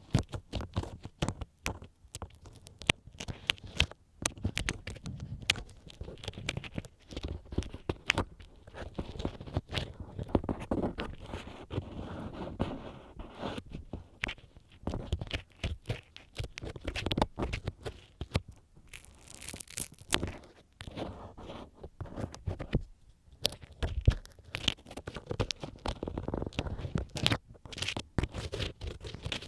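Bamboo ear pick scraping and rubbing inside the ear of a binaural microphone: close, dense crackly scratches with many sharp clicks.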